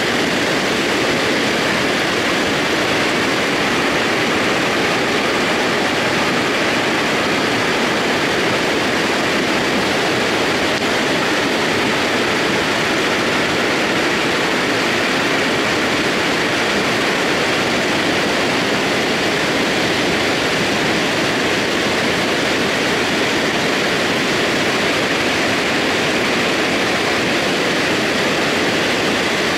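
Mudflow of rock debris and water pouring down a mountain scree slope: a loud, steady rushing noise without let-up.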